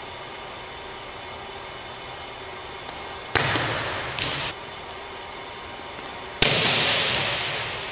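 A volleyball being struck: two loud, sharp smacks about three seconds apart, with a smaller one shortly after the first, each ringing out in a long gymnasium echo.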